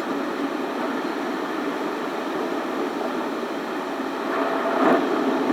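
Car driving along a road: steady tyre and engine noise that swells a little near the end.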